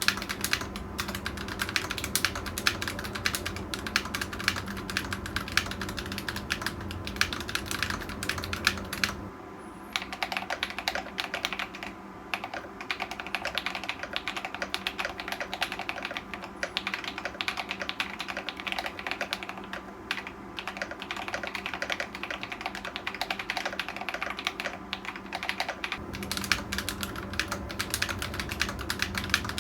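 Typing on a Tecware Veil 87 tenkeyless mechanical keyboard with Akko Cream Blue v3 tactile switches: a fast, irregular run of key clicks and clacks, pausing briefly about a third of the way through.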